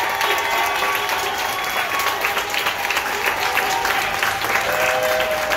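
Crowd applauding: many people clapping steadily together, with a few long steady tones sounding over the clapping.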